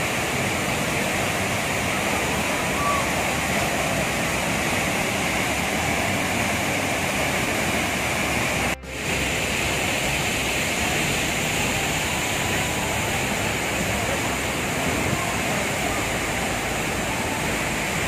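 Steady rush of a waterfall and the water running over rocks below it, with a brief drop about nine seconds in.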